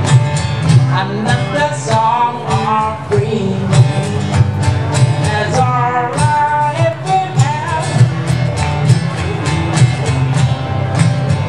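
Live amplified music from a seated duo: strummed acoustic guitar over a steady electric bass line, with a melody line moving above, playing a reggae song.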